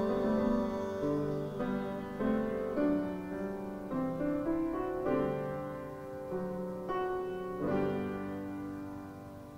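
Piano playing slow, quiet chords, each struck and then left to ring, with the music fading away toward the end.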